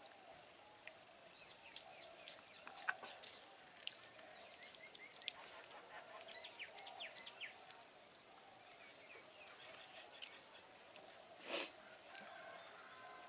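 Faint outdoor bird sounds: quick runs of short falling chirps, with lower wavering calls underneath, and scattered soft clicks as a hand mixes rice on a banana leaf. About a second and a half before the end comes a short rush of noise, the loudest sound here.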